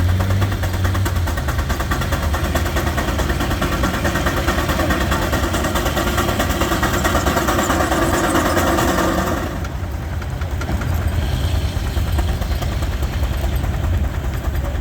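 Frick 8½ x 10 steam traction engine driving a sawmill under load, with a rapid, even beat, while the sawmill blade cuts through a log. The sawing noise stops suddenly about nine and a half seconds in as the cut finishes, and the engine and mill keep running.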